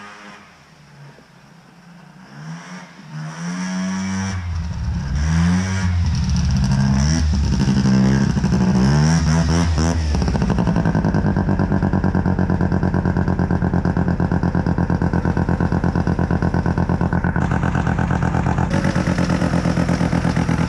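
Sachs KM914 Wankel rotary engine of a custom dual-carb snowmobile with a modified exhaust, revved up and down several times and then held steady at high revs for the second half.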